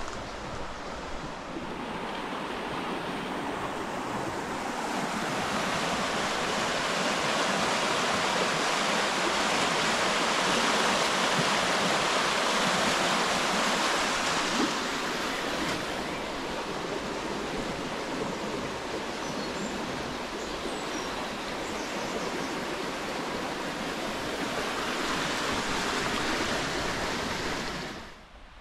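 River Stour water rushing steadily around Spetisbury Mill, swelling louder for several seconds in the middle, easing, then rising again before cutting off abruptly near the end.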